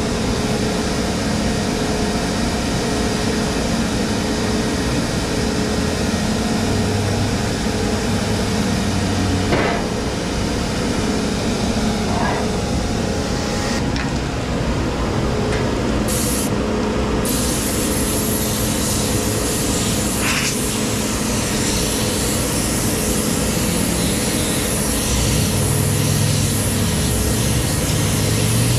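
Car wash machinery running with a steady rushing noise and a low hum, with a few light knocks as the equipment is handled.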